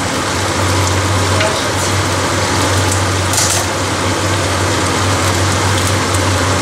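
Meat and chopped vegetables sizzling steadily as they fry in oil in a deep non-stick pan, with a brief sharper crackle about three and a half seconds in. A low steady hum runs underneath.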